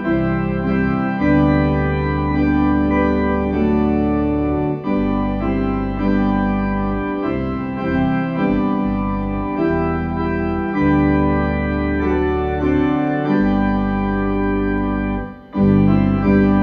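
Organ playing slow, sustained chords over deep bass notes, the harmony changing every second or two, with a brief break near the end before it resumes.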